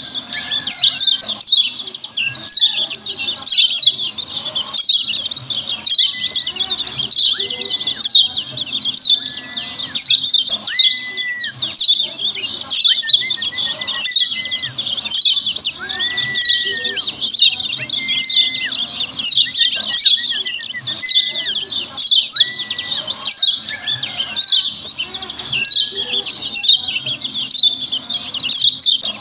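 Yellow white-eye (kecial kuning) calling a rapid, unbroken run of high 'ciak ciak' chirps, several a second, with a lower flat whistled note about once a second.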